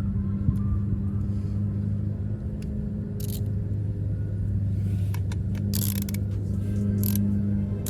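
A steady low hum, with a few sharp metallic clicks and scrapes from about three seconds in as a hand wrench works on the truck's starter wiring.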